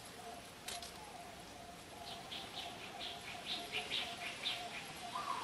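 A bird chirping a quick run of about eight short, high notes, over a faint steady wavering hum. A sharp click comes right at the start and another just under a second in.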